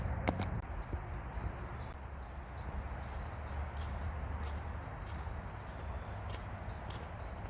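Insects trilling: a continuous, finely pulsing high-pitched chirr, over a low steady rumble.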